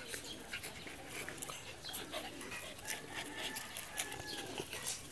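A Siberian husky puppy and a white spitz-type dog play-fighting: dog vocalizations amid scuffling and repeated clicks.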